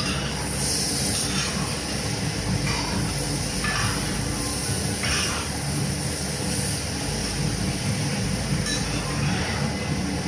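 Kampung fried rice frying in a hot wok with a steady sizzling hiss, and a few brief clinks or scrapes of a metal spoon or spatula against the wok.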